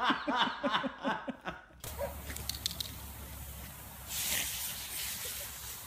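A quick run of short, pitched vocal sounds for the first two seconds, then a lawn sprinkler's water jet hissing steadily, growing brighter about four seconds in.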